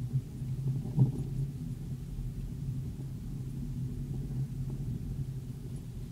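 Vehicle engine running at a steady low drone while driving over a snowy, rutted trail, heard from inside the vehicle, with a sharp thump about a second in as it jolts over a bump.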